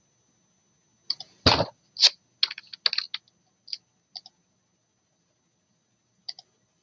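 Computer keyboard and mouse clicks. A quick, irregular run of about a dozen clicks, one of them a heavier knock, is followed after a pause by a couple of soft clicks near the end.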